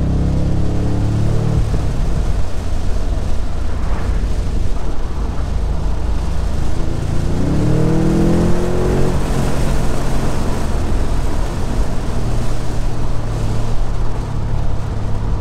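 BMW M850i's twin-turbo 4.4-litre V8 and its loud sport-mode exhaust, heard from the open cabin with the top down: a steady drone with wind rush, then the engine revs up, rising in pitch about halfway through, before settling back to a steady pull.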